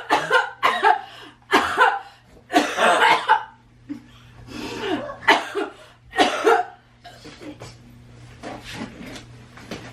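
A person coughing hard in repeated fits: several loud, harsh coughs in the first seven seconds, then weaker ones. It is a faked coughing fit, put on for a prank.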